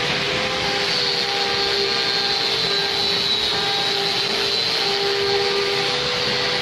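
Sawmill machinery running steadily, a continuous mechanical noise with a low hum and a high, slightly wavering whine.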